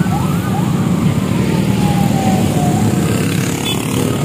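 Many motor scooter engines running together at low speed, with a siren giving a few quick rising whoops and then one long, slowly falling wail.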